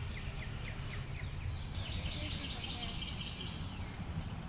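Outdoor ambience: a bird chirping repeatedly in short, falling notes, about three a second, turning into a busier run of chirps about half-way through, over a low steady rumble and a thin, steady high-pitched tone.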